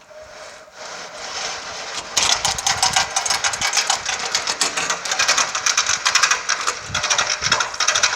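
Industrial sewing machine running, stitching tarpaulin fabric in a fast, steady run of needle strokes that gets louder about two seconds in.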